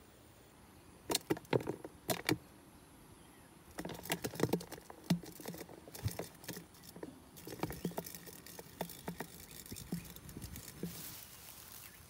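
Irregular clicks, taps and knocks of a clear plastic catch box being handled, in a short cluster about a second in and a longer busy run from about four seconds, with a brief rustle near the end.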